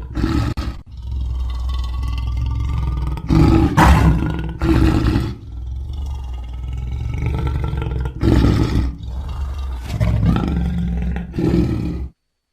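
Big-cat growling and roaring, as in a lion sound effect: a deep, rough growl that runs on with three louder roaring surges, then cuts off abruptly near the end.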